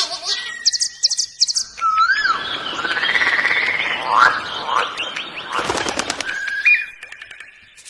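Birds calling, with short whistled notes that slide up and down in pitch, over a dense rustling flurry that lasts a few seconds in the middle and ends in a quick run of clicks.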